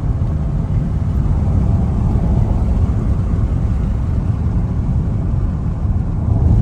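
Car driving: a steady engine and road-tyre rumble heard from inside the cabin.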